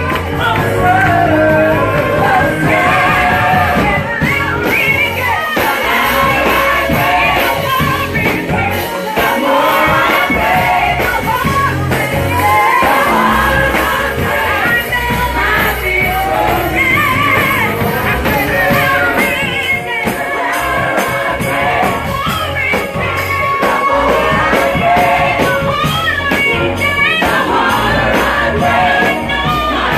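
Gospel praise-and-worship music: singers carry the melody over a band with a steady bass line.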